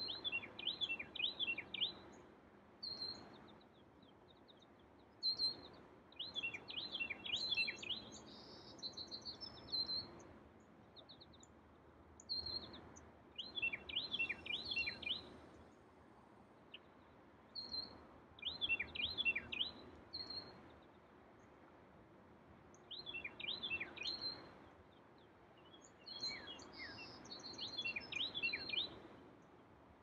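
A songbird singing the same short song over and over, about every five seconds. Each song is a quick run of falling whistled notes, and a few higher chirps from another bird are mixed in. A faint steady hiss runs underneath.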